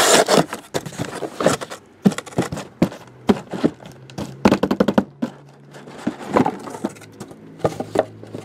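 Cardboard hobby boxes being pulled out of their cardboard shipping case and set down on a table: an uneven run of thunks, knocks and cardboard scrapes.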